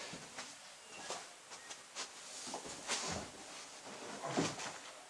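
A string of knocks, rustles and thumps from a school bag being handled and thrown down, with the two loudest thumps about three seconds in and near the end.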